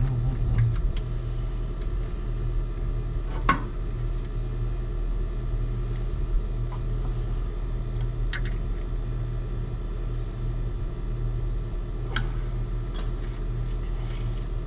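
A few short metallic clicks and knocks of a wrench as the generator's magnetic RPM sensor is tightened down, over a steady low mechanical hum.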